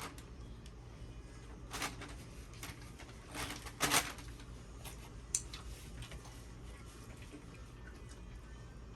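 Eating and food-handling sounds at a table: a few short rustles and clicks, the loudest pair about four seconds in, over a steady low hum.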